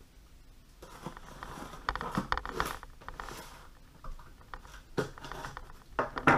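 A small knife slicing through packing tape on a cardboard box, in irregular scraping, crackling strokes with small clicks. Near the end there are a few sharp clicks as the knife is set down on the wooden table.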